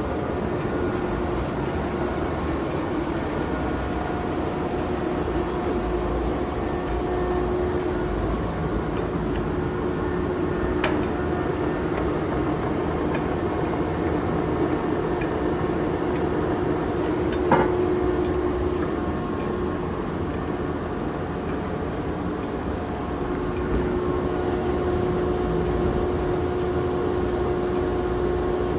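Monarch engine lathe running under power: a steady mechanical hum with a gear whine that fades and returns, and a couple of sharp clicks, the louder one past the middle.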